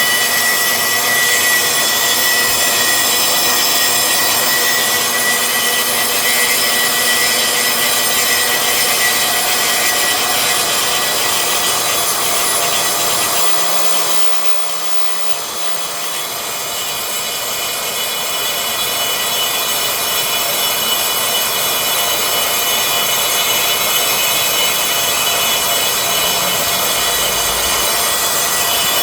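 Makita band saw running and cutting through square steel pipe: a steady, loud sawing noise with a high hiss. It eases for a couple of seconds about halfway through, then picks up again.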